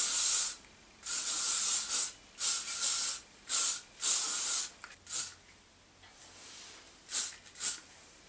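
Aerosol hairspray can giving a light spray over a styled hairdo: about eight short hisses, each under a second, with a pause about five seconds in before two shorter ones near the end.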